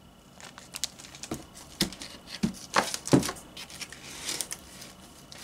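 Hard plastic CGC graded-comic slabs clacking against one another as they are pulled out of a cardboard shipping box, a series of sharp knocks with some crinkling of plastic and cardboard rustle.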